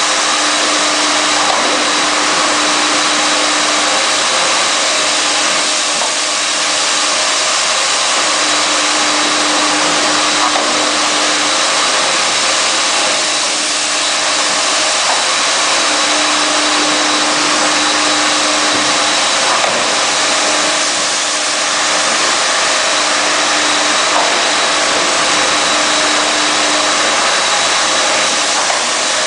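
Rug washing machine running steadily: a loud, even rushing noise with a low hum that comes and goes for a few seconds at a time.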